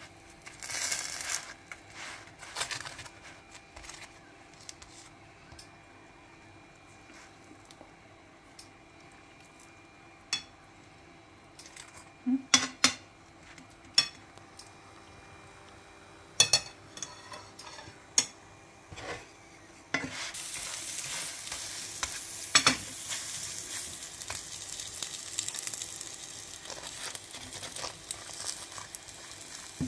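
A fork taps and scrapes on a non-stick frying pan as a pat of butter is rubbed over a gözleme. About two-thirds of the way in, a steady sizzle of the gözleme frying in butter sets in, with more fork taps over it.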